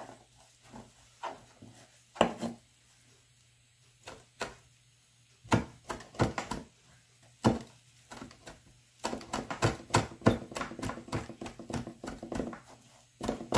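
Chef's knife chopping fresh rosemary on a plastic cutting board: a few separate knocks in the first half, then a quick run of chops from about nine seconds in.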